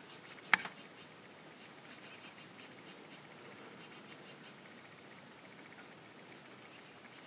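Quiet open-country ambience with small bird chirps, short high notes in groups of two or three, heard a few times. A single sharp click or knock about half a second in is the loudest sound.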